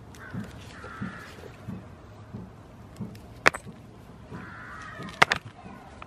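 Goats grazing right beside the microphone, with a soft, regular cropping of grass about every two-thirds of a second. Two harsh, rasping calls sound, one near the start and one near the end, and two sharp clicks, the loudest sounds, come about halfway through and near the end.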